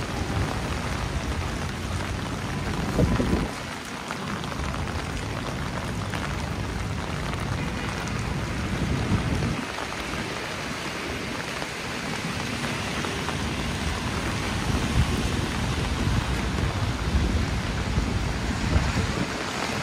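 Heavy rain falling steadily and pattering on an umbrella, under a low rumble that swells about three seconds in and drops away briefly twice.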